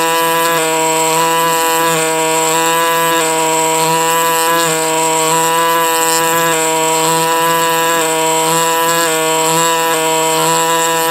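Paleo Tools ME-9100 pneumatic air scribe running with a steady buzzing tone as its stylus chips matrix off a small rock concretion.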